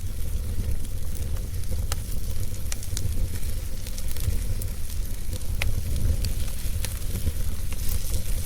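Wood fire burning in a fireplace: a steady low rumble with scattered, irregular sharp crackles and pops from the burning logs.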